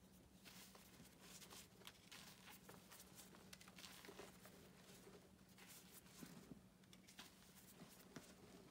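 Hands squeezing and crumbling lumps of dyed gym chalk in a bucket of loose chalk powder: faint, irregular soft crunches and hissing trickles of falling powder, over a low steady hum.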